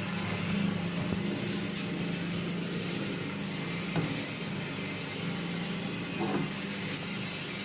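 Electric motor of a masala mixer grinder or batter grinder running steadily, a constant hum with a whirring hiss over it and a few faint knocks.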